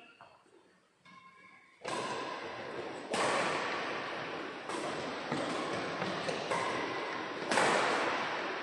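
Badminton rackets striking the shuttlecock in a rally: about six sharp hits starting some two seconds in, roughly one a second, each ringing on in the echoing hall.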